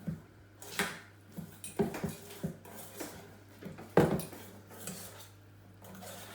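A kitchen utensil clinking and knocking against a mixing bowl at irregular intervals as cake batter is mixed, about seven knocks with the loudest about four seconds in.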